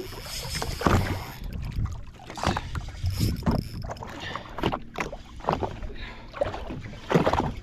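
Water slapping against the hull of a Sea-Doo FishPro jet ski at sea: a string of irregular splashes and knocks over a steady low rumble.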